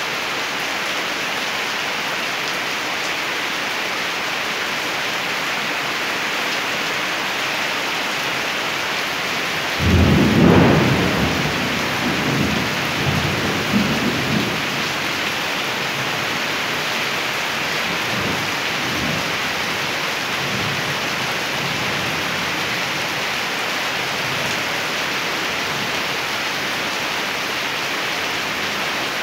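Steady rain falling throughout. About a third of the way in, a sudden clap of thunder rolls on in low rumbles that swell again several times over about ten seconds and then fade.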